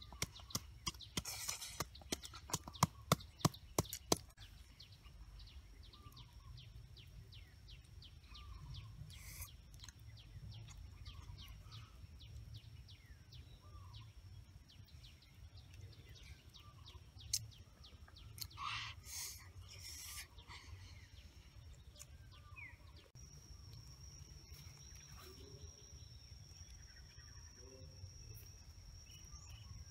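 A wooden pestle pounding in a mortar, with quick, loud knocks for about the first four seconds. After that comes a quiet forest background with scattered bird chirps and a steady high insect buzz that grows stronger about two-thirds of the way through.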